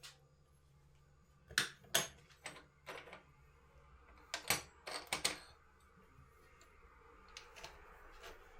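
Clatter of household objects being handled: two quick runs of sharp clicks and knocks, then a soft rustle near the end.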